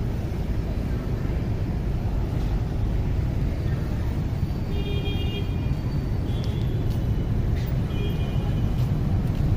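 Steady city street traffic noise, a constant low rumble of passing vehicles. Short high tones break through about five seconds in and again around eight seconds in.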